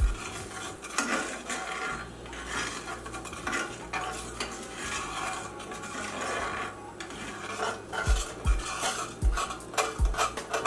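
Metal spoon stirring and scraping across the bottom of a cast iron skillet through a thin flour-and-water gravy, deglazing the browned bits stuck to the pan. A few low knocks near the end.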